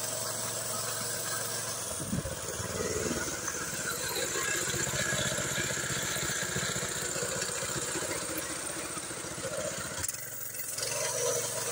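The walk-behind tractor engine of a homemade trike runs steadily with a rapid, even firing beat. The sound dips briefly about ten seconds in.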